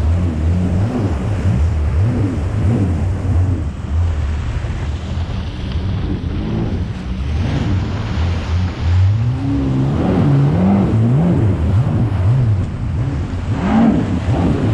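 Yamaha VX Cruiser jet ski engine running over wind buffeting the microphone and the splash of choppy water. About two-thirds of the way in, the throttle is worked on and off, so the engine pitch rises and falls repeatedly.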